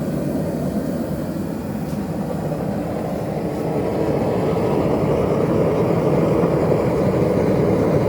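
A forge burner running hot with a steady rushing, jet-like noise that grows a little louder about halfway through.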